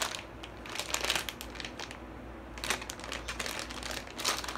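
Blind-bag toy packet crinkling in irregular crackles as hands pull and twist at it, trying to tear it open. It goes quieter for a moment midway.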